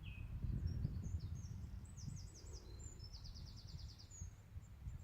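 Small songbirds singing: a repeated short falling note right at the start, then high twittering phrases and a fast trill about three seconds in, over a steady low rumble.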